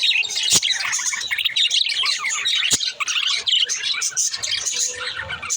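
Pet budgerigars chattering and chirping without a break, with two sharp clicks about half a second and about three seconds in.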